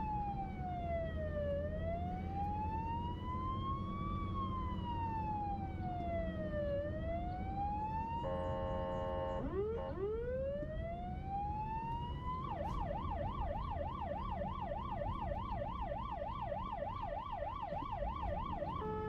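Emergency vehicle siren: a slow wail rising and falling twice, a short horn blast about eight seconds in, then a rising wail that switches to a fast yelp of about four cycles a second, over a steady low traffic rumble.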